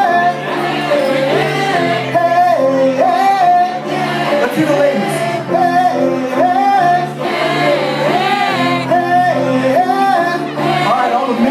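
Live band playing with singing: a short sung phrase repeats over and over above a steady accompaniment.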